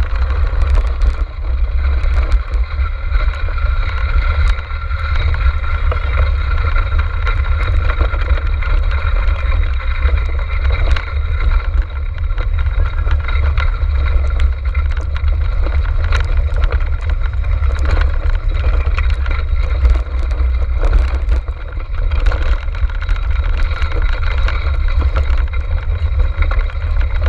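Loud steady rumble of wind and motion on a camera riding a six-dog racing kart, with scattered clicks and rattles from the kart running over the trail.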